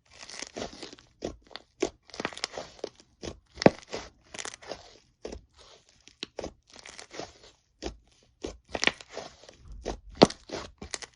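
Crunchy slime being squeezed and pressed, giving an irregular run of sharp crackling pops and clicks.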